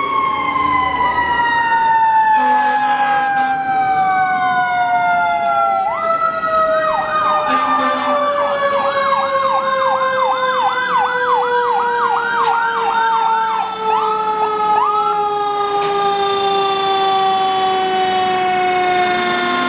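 Emergency vehicle sirens: one long siren tone slides slowly and steadily down in pitch. From about six to fifteen seconds in, a second siren runs over it in a fast yelp, rising and falling about two to three times a second.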